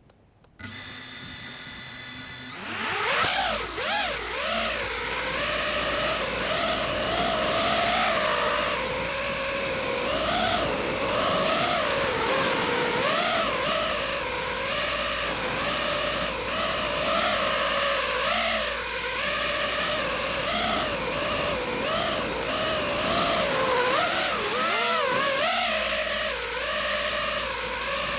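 FPV racing quadcopter's brushless motors and propellers. They hum steadily at a low idle from about half a second in, then throttle up loudly around two and a half seconds in. The pitch rises and falls continuously as the throttle is worked in flight.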